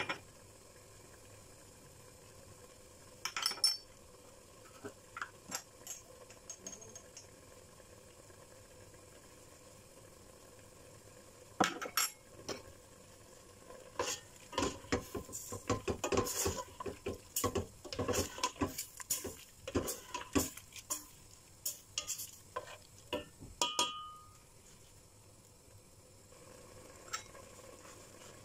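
A spoon stirring squid, shrimp and fish pieces in a stainless steel pot, knocking and scraping against the pot's sides, over a faint sizzle of the seafood frying in olive oil. A few scattered knocks come first, then a long run of clinks and scrapes from about twelve seconds in to near twenty-four.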